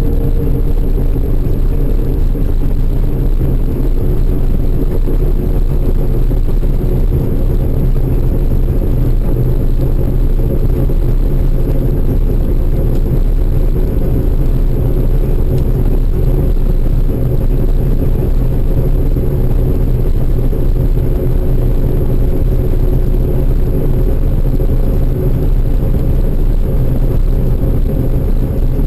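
A large engine running steadily at constant speed: a loud, even low drone with steady hum tones and no changes throughout.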